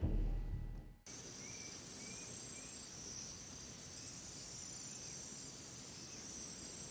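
Night insect chorus: a steady high cricket trill with a regular ticking about twice a second, and a few short chirps around the second second. A low rumble cuts off suddenly about a second in.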